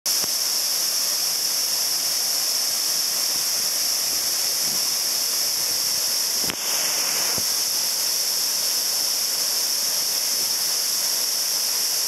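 Waterfall rushing steadily into its plunge pool, an even hiss-like roar with a brief dip about halfway through.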